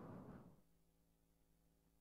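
Near silence: wind noise from the snowstorm fades out within the first half second, leaving only a faint steady hum.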